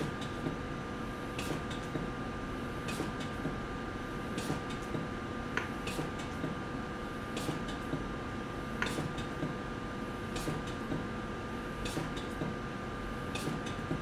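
Maquet CardioSave Hybrid intra-aortic balloon pump cycling, with a short mechanical click about every one and a half seconds over a steady hum and faint whine from the console. The even spacing matches the pump driving the balloon on every other heartbeat at a 1:2 assist frequency.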